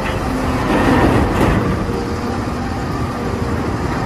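Toy rocket-launcher truck being moved and run: a steady noisy sound with a faint hum, swelling slightly about a second in.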